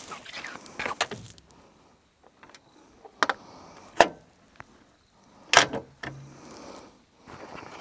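Several sharp clicks and knocks from a rooftop tent's rain fly and spring poles being pulled out and fitted, the loudest two about four and five and a half seconds in.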